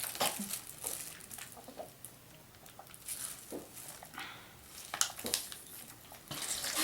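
Drinking from Capri Sun foil pouches through straws: scattered small sucking, swallowing and pouch-crinkling sounds, with a sharper one about five seconds in.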